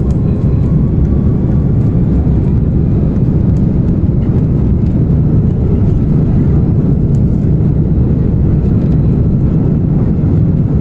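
Airbus A330-300 airliner during its takeoff: a loud, steady low rumble of jet engines and airframe with no clear rise or fall in pitch.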